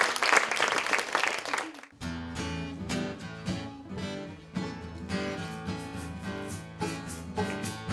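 Applause for about two seconds that cuts off abruptly, then acoustic guitars plucking and strumming an instrumental intro in a steady rhythm.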